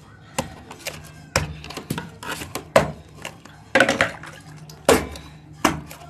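Glass bottle pounding cooked yam in a metal pot: a run of irregular knocks, about one or two a second.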